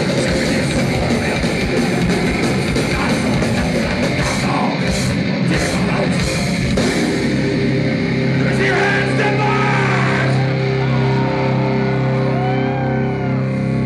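Live death metal band playing loud: fast drums and distorted guitars, which give way about seven seconds in to a held, ringing guitar chord with yells over it.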